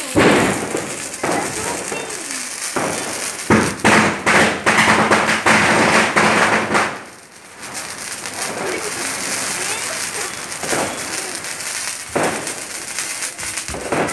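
Diwali sparklers fizzing and crackling, with sudden bangs of firecrackers. A loud hissing stretch from about three and a half seconds in cuts off sharply near the halfway point.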